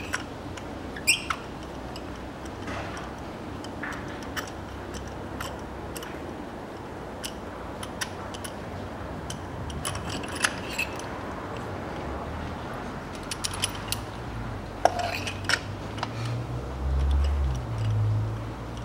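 Scattered sharp metallic clicks and clinks of a spark plug socket and extension being worked in a plug well of a Hyundai ix35's 2.0-litre petrol engine, as an old spark plug is unscrewed. A steady low hum runs underneath, with a louder low rumble near the end.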